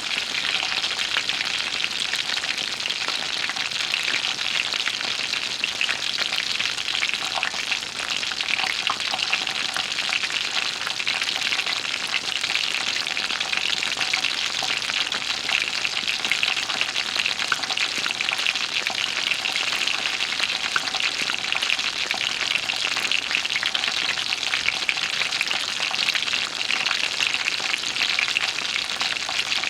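Cooking pan sizzling steadily: a dense frying hiss scattered with fine crackles and pops.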